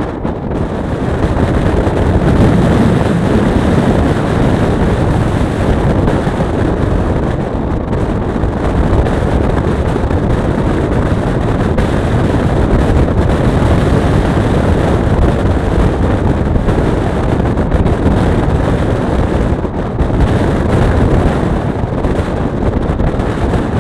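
Express passenger train running at speed, heard from an open coach door: a steady low rumble of wheels on the rails mixed with wind buffeting the microphone.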